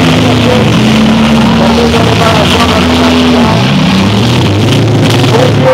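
Demolition derby cars' engines running and revving, their pitch dropping and then climbing again about three and a half seconds in, over the din of a large crowd.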